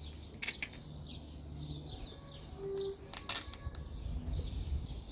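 A songbird singing nearby, a quick run of high, repeated swooping chirps, over a low steady background hum, with a few light clicks from handling small parts.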